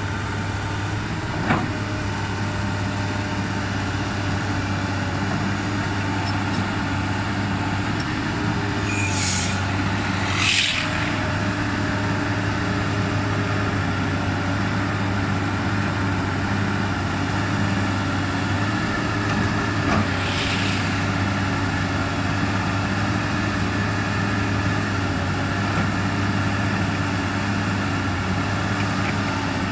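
Komatsu PC200 crawler excavator's diesel engine running steadily while the machine works, with a few brief hisses about a third of the way in and again about two-thirds in.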